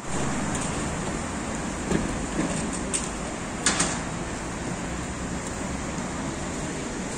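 Steady city street traffic noise on a wet road, with a few short knocks about two, three and nearly four seconds in.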